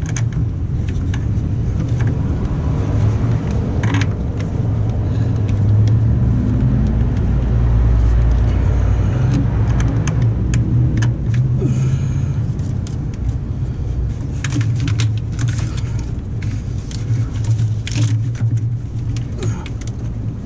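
A steady low rumble that swells in the middle, with scattered clicks and clinks in the second half as heavy starter battery cables and wires are handled and routed by hand on the underside of a bus.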